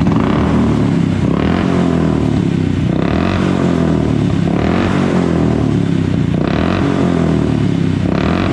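Royal Enfield Bullet Classic 500's single-cylinder fuel-injected engine running with an even beat, swelling briefly about every second and a half. It is running without the misfire it had before its throttle body was cleaned and the injection reset.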